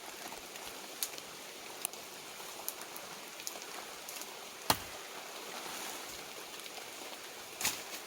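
Steady rain falling in the forest, an even hiss, with a few sharp clicks or taps, the loudest about halfway through.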